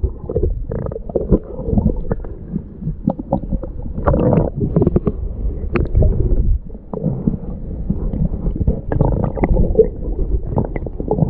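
Muffled underwater rumbling and gurgling, picked up by a submerged camera, with scattered clicks and knocks as a hand digs and scrapes through the sandy seabed for clams.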